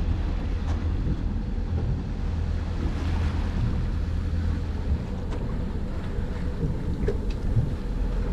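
Sailing yacht under way on its inboard engine: a steady low rumble with water rushing along the hull, and wind buffeting the microphone.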